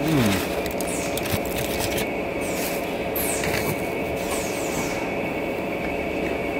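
A steady mechanical hum throughout, with chewing and the crinkling of aluminium foil over it.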